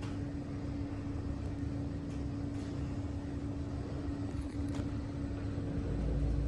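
Schindler 5500 machine-room-less lift travelling: a steady low rumble with a constant hum at a fixed pitch and a few faint clicks, the rumble growing louder near the end.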